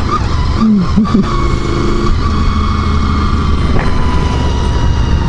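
1999 Honda VFR800's V4 engine running steadily while riding on track, under heavy wind rush on the bike-mounted camera. There are brief dips in pitch about a second in.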